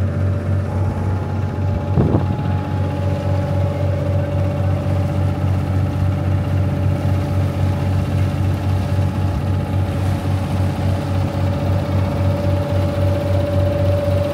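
River cruise boat's engine running steadily under way, a deep hum with a steady higher whine above it. A brief knock about two seconds in.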